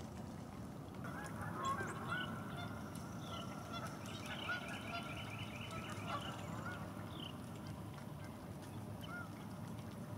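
Canada geese honking, a string of calls from about one to seven seconds in, with a quick run of higher notes around four to five seconds.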